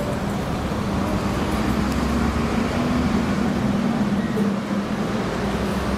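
Steady urban traffic noise with a constant low drone.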